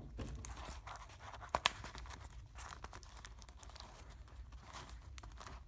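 Paper 2x2 cube made of folded Post-it notes being handled: soft paper rustling and scraping with scattered light clicks, and two sharp clicks about a second and a half in.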